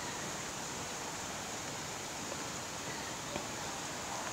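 Steady outdoor background hiss with no clear source standing out, and one faint click about three and a half seconds in.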